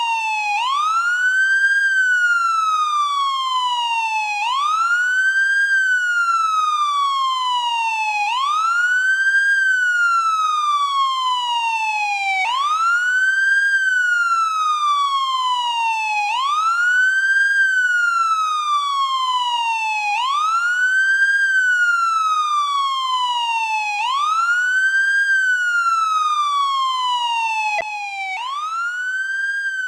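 American police car siren on its wail tone: the pitch sweeps quickly up, then falls slowly, repeating about once every four seconds. A brief click comes near the end, after which it is a little quieter.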